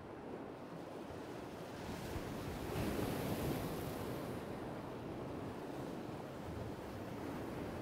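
Sea waves washing against rocks at the shore, a steady rush that swells into a louder wash about three seconds in.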